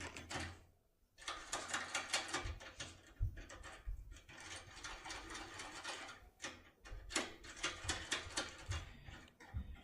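Tin-foil impression tool working in an IFAM WX lock cylinder: quick, irregular runs of small metallic clicks and rattles as the tool is jiggled and turned, with brief pauses between runs.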